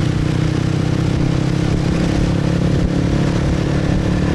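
Motorbike engine running at a steady cruise, with a constant rush of road and wind noise.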